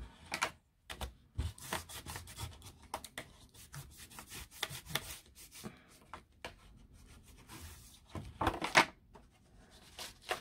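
Bone folder and fingers rubbing and scraping on cardstock in a run of short, uneven strokes, burnishing glued tabs down inside a card box. Near the end there is a louder scuff and rustle of card as the box is handled.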